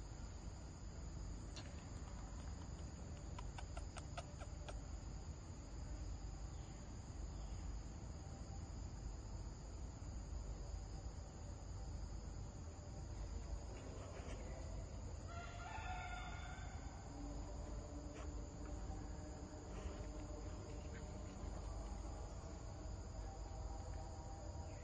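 A rooster crows once, about fifteen seconds in, over a steady high drone of insects.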